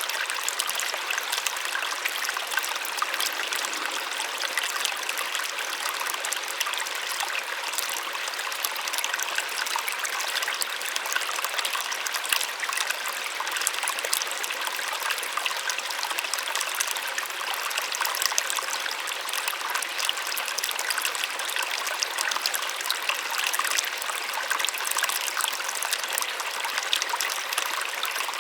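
Small waterfall splashing steadily, a gentle rushing and trickling of water with no breaks.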